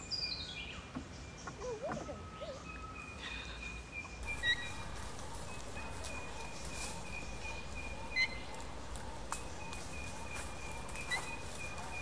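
Forest birds calling: a quick falling run of notes at the start, then scattered short chirps, over a steady high-pitched tone and a soft outdoor background.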